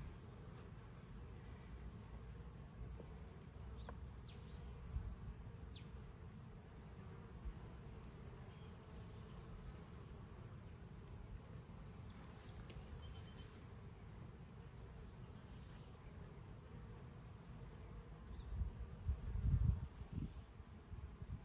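Steady high-pitched chirring of insects, with a low rumble beneath. A few dull bumps come near the end as the hive box is handled.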